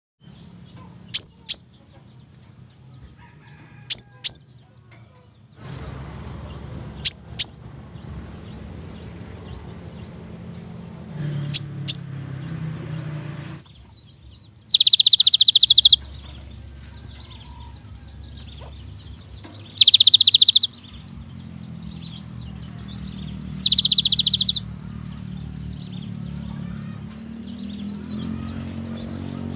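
Cinereous tit (gelatik batu) singing. Four loud pairs of short, sharp, downward-sliding whistles come about three seconds apart, followed by three longer harsh buzzing rattles.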